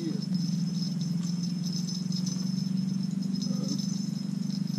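A steady low hum under a high, fast-pulsing chirr of insects.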